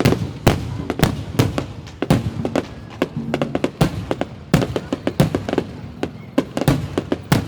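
New Year fireworks display, shells bursting in a rapid, irregular string of sharp bangs, about two to three a second.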